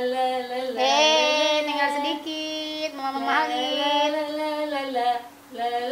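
A woman singing a slow tune in long held notes that glide gently up and down, with a short pause about five seconds in.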